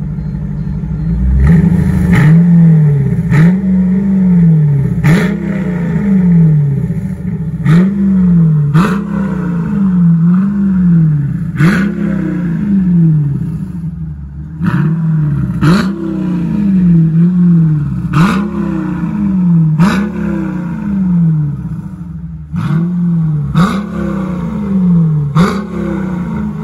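Mercedes SLK 55 AMG's 5.4-litre V8 revved in quick throttle blips through a Kinney's Tunnel Ram performance exhaust with quad tips, each blip a fast rise and fall in pitch, about one a second with a couple of short pauses. The exhaust note is loud and aggressive.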